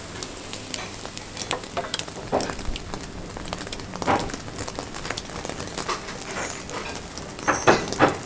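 Minced-meat kebabs on skewers sizzling over hot charcoal, with a steady hiss and scattered crackles and pops. A few louder knocks come near the end.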